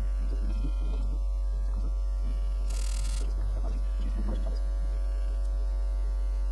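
Steady low electrical mains hum, with a short burst of hiss about three seconds in.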